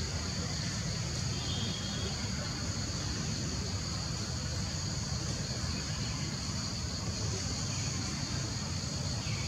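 Steady, unbroken high-pitched insect chorus, cicadas or crickets, over a continuous low rumble.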